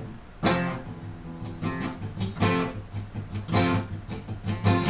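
Instrumental break in a song: acoustic guitar strumming chords in a steady rhythm over a bass line.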